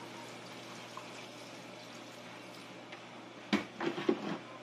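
Hot water pouring in a thin, steady stream onto chicken feet in a pot, the braising liquid for adobo. A few clunks of cookware about three and a half seconds in.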